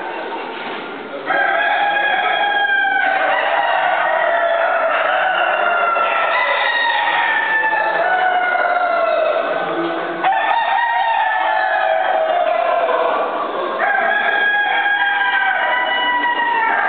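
Several roosters crowing over one another, long drawn-out crows overlapping without a break, with fresh crows starting about a second in, about ten seconds in and near fourteen seconds.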